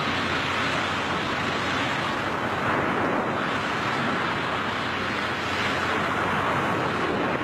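Steady rush of wind over a skydiving camera's microphone in freefall at about 150 mph, an even noise with no breaks.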